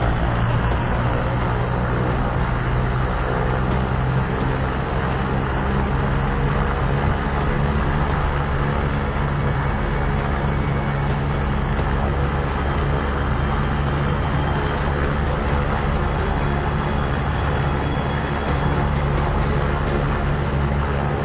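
Helicopter running steadily on the ground after an emergency landing, a loud, even low drone with no break.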